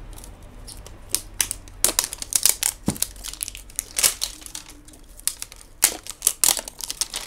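Crinkly paper wrapping being peeled and torn off a toy doll capsule, in irregular crackles and crinkles. The crackling is densest about two seconds in, around four seconds, and again near the end.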